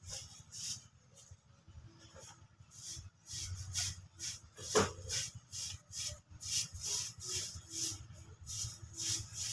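Broom sweeping dirt and gravel ground: scratchy swishing strokes, about three a second. A short rising squeak comes about halfway through.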